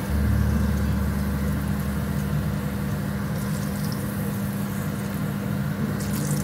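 A steady low machine hum, with faint crackles of battered chicken pieces deep-frying in oil that stand out a little about three and a half seconds in and near the end.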